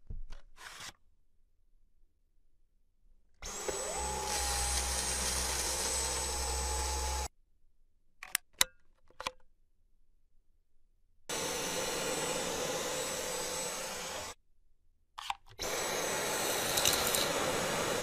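Dyson Cyclone V10 cordless stick vacuum's motor running in three bursts of a few seconds each, switched on and off abruptly, with a high whine that rises as the motor spins up at the start of the first. Short sharp clicks fall between the bursts.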